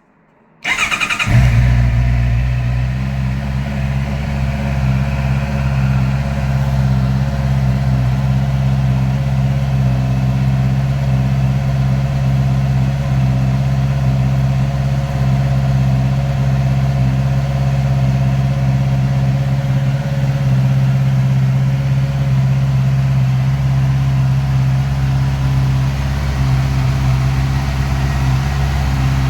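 Honda CB650R's inline four-cylinder engine started about a second in, then idling steadily through its stock exhaust.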